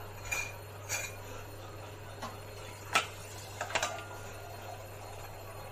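A few light clinks of a metal spoon against the dish while chocolate glaze is spooned onto a cake, the sharpest about three seconds in, over a steady low hum.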